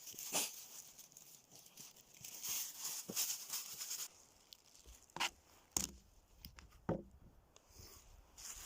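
Dry crackling and rustling for about four seconds, then quieter, with three separate sharp snaps, like dry leaves and twigs being stepped on or handled in a forest.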